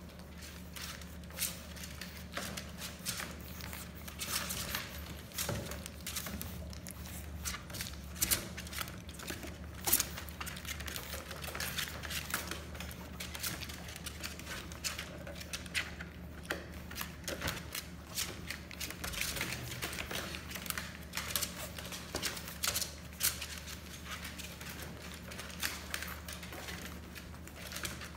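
A litter of bulldog puppies eating and scrambling about in a hard plastic kiddie pool: a busy, irregular patter of small clicks and taps, over a steady low hum.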